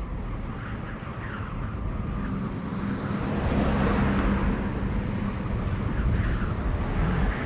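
Cartoon bee buzzing sound effect: a low steady buzz over a rushing noise that swells through the middle and eases off, like something flying past.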